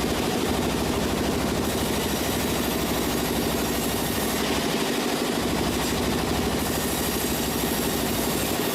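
Sawmill machinery running steadily: an engine-like hum with a fast, even pulse and no break.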